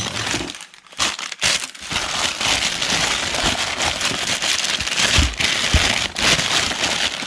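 Crumpled packing paper rustling and crinkling as it is pulled out of a cardboard box and unwrapped from paper-wrapped glasses. Two dull thuds come about five and six seconds in.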